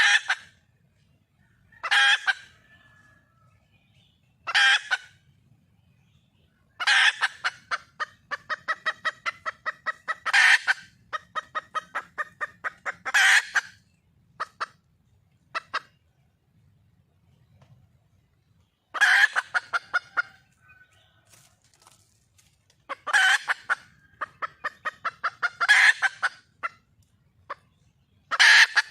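Red junglefowl hen calling for a mate: loud, sharp calls every few seconds, with a long run of rapid clucks, about four a second, in the middle.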